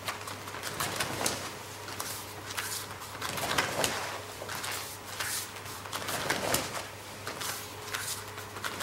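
A scatter of short slaps and scuffs from a karate front kick drill: heel and foot striking a partner's held-up palm, bare feet stepping on the dojo floor and the cotton gi swishing. The loudest strike comes a little under four seconds in, over a steady electrical hum.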